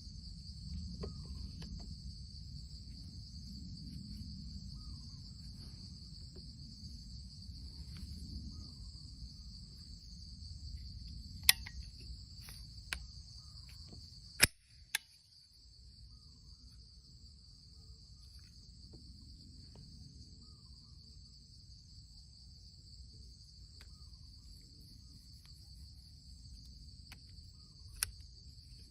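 Crickets chirring steadily, with a low rumble under them for the first half. A few sharp, separate clicks cut through, two of them close together about halfway through and another near the end.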